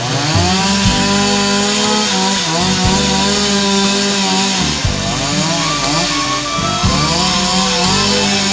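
Two-stroke chainsaw running and cutting into a tree, its engine pitch rising and falling several times as it is revved, with music underneath.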